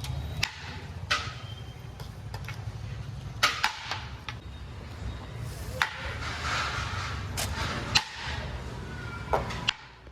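Metal utensils knocking and clinking against a large cooking pot, about nine sharp separate strikes, over a steady low hum.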